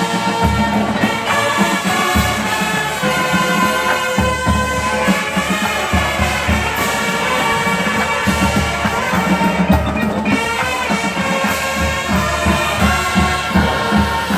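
College marching band playing its field show: massed brass, with sousaphones on the low notes, over drums and front-ensemble keyboard percussion, continuous and loud.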